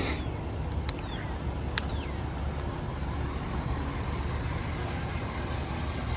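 A truck running on the road: a steady low rumble of engine and road noise. Two sharp clicks come about a second apart near the start.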